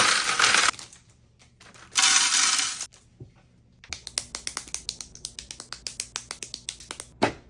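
A plastic bag of Lego pieces rustled and torn open in two noisy bursts, then small plastic Lego pieces clicking and clattering in a fast run of sharp clicks, several a second.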